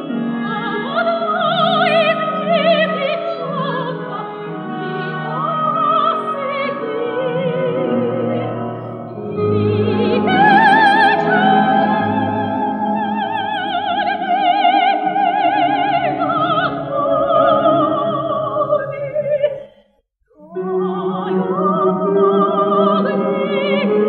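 Female soprano singing a Russian folk song in a full operatic voice with wide vibrato, accompanied by an orchestra of Russian folk instruments. About twenty seconds in the sound breaks off for half a second, then the singing resumes.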